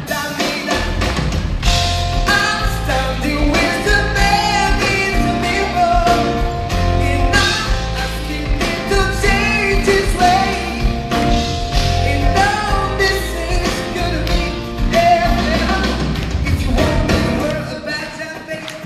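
Live pop song: a male vocalist singing into a handheld microphone over a band with drums and a low bass line. The music gets quieter near the end.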